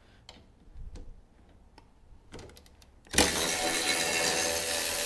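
Cordless electric ratchet running, spinning out a bolt under a scooter's step: a loud steady whir that starts about three seconds in, after a few light clicks.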